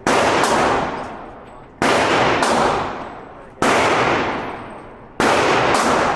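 Gunshots: four loud shots, spaced about one and a half to two seconds apart, each trailing off in a long echo, with fainter cracks from other shots in between.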